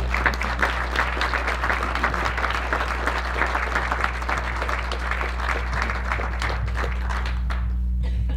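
An audience applauding, many people clapping together, the clapping thinning out and stopping near the end, over a steady low hum.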